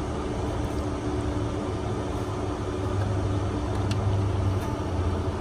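Steady low mechanical hum from a running motor, even throughout with no knocks or clicks.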